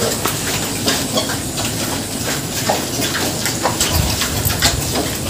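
Black native pigs, a sow and her piglets, snuffling and chewing madre de agua leaves in a concrete pen: a steady hissy rustle with many small clicks.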